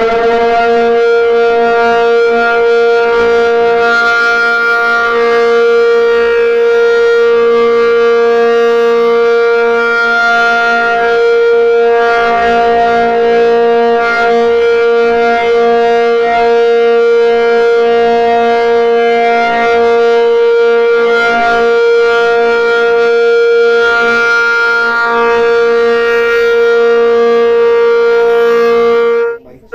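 Outdoor warning siren held at a steady, unwavering pitch after winding up, sounding a steady alert tone. It cuts out abruptly for a moment just before the end.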